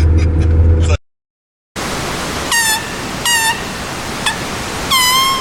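A low vehicle hum with talking cuts off about a second in. After a short gap there is a steady rushing noise with four short, high animal calls roughly a second apart, each sliding down in pitch and then levelling off.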